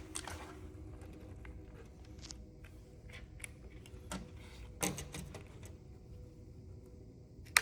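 Scattered light clicks and taps of a plastic computer keyboard's parts being handled and pried apart, with one sharp click near the end.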